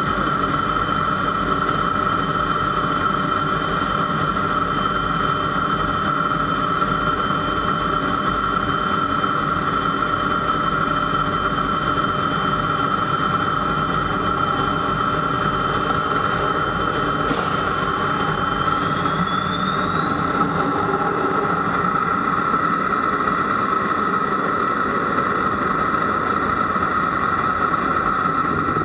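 L-29 Delfin's turbojet engine running steadily, heard from the cockpit, with a strong steady whine. About two-thirds of the way through there is a sharp click, and then the whine rises in pitch over a few seconds as the engine spools up for the takeoff roll.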